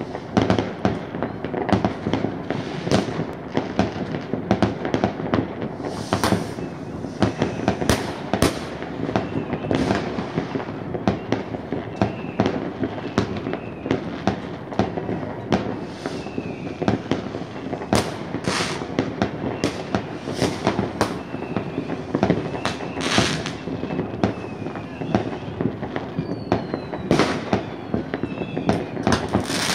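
New Year's Eve fireworks going off in large numbers near and far: a continuous rumble of distant bangs and crackle, broken by many sharper, louder bangs. Faint whistles of rising rockets can be heard now and then.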